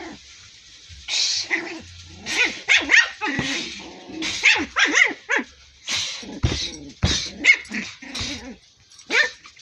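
Small white puppy giving a run of short, high-pitched barks and yaps at irregular intervals, play barking at a person's hand.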